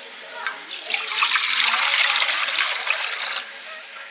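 Water gushing loudly for about two and a half seconds, starting suddenly about a second in and dying away near the end.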